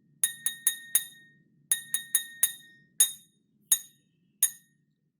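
A metal spoon tapping a drinking glass, each strike ringing with a clear 'ting'. Two quick runs of four taps come first, then three single taps spaced further apart.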